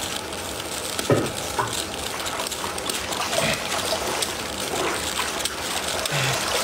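Water splashing and trickling as a soaked cloth robe is lifted and wrung over a plastic basin during dyeing, with a light knock about a second in.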